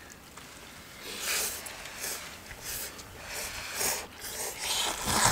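Ramen noodles being slurped in a run of short noisy pulls, one after another, starting about a second in.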